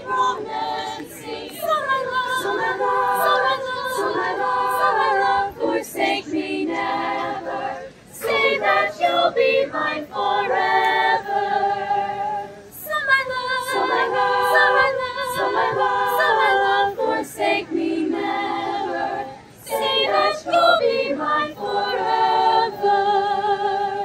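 High school chamber choir singing a lively song a cappella, unamplified, in phrases with short breaks between them.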